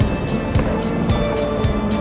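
Background music with a steady beat, a low kick about twice a second and quicker hi-hat ticks between.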